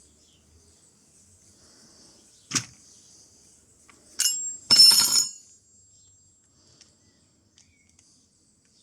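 Metal tool parts being handled: a single sharp knock about two and a half seconds in, then a click and a brief, ringing metallic clatter a little later.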